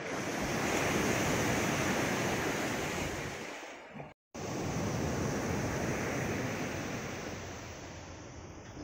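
Sea surf breaking and washing in among concrete breakwater blocks: a rush of water that swells and fades. The sound cuts out for a moment about four seconds in, then another wave swells and slowly fades.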